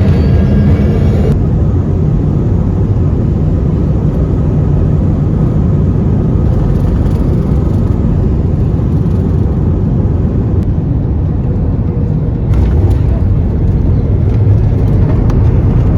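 Jet airliner cabin noise on an Airbus A321-231: a loud, steady low rumble of its IAE V2500 turbofans and airflow. The sound changes abruptly about a second in, and the level steps up about twelve seconds in.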